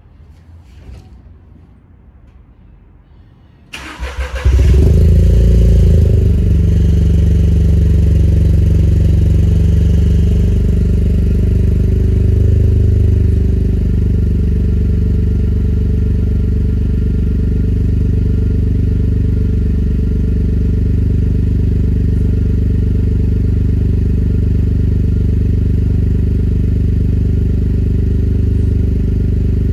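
Engine cold-starting: faint low sound for the first few seconds, then it fires about four seconds in with a loud flare and settles into a steady cold idle that eases down slightly after about thirteen seconds.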